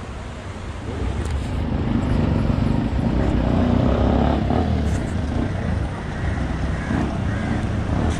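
Vehicle engines on a hairpin bend, led by an old jeep's engine passing close: a low rumble that swells from about a second in, is loudest around three to four seconds, then eases off as it moves away.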